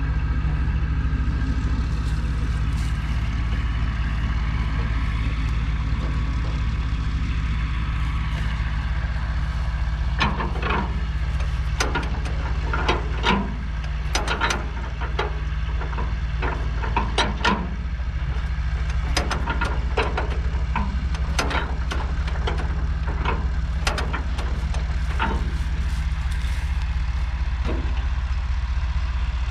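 1937 Allis-Chalmers M crawler's 4.9-litre four-cylinder petrol/TVO engine idling steadily, not yet fully warm. Through the middle stretch a scattered run of short, sharp clicks and knocks sounds over it.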